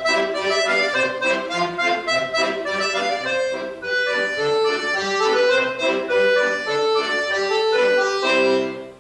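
Accordion playing a lively piece, closing on a held chord that cuts off near the end.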